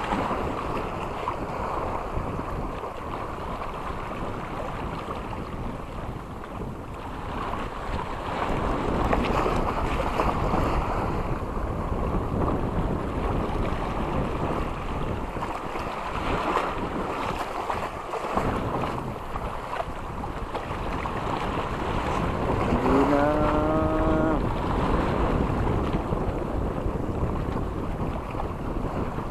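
Sea wind buffeting the microphone over waves washing on the shore, a steady, gusting noise. Late on, a brief rising call with a clear pitch stands out over it.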